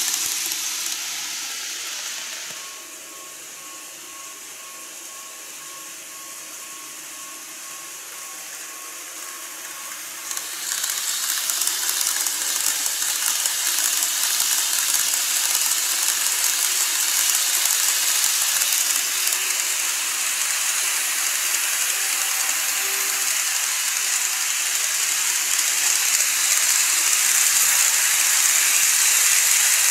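N-gauge model trains running on plastic viaduct track: a steady whirring hiss of wheels and motors. It fades over the first few seconds as a train moves off, leaving a faint steady whine. About ten seconds in it jumps suddenly louder and grows a little as a train comes close.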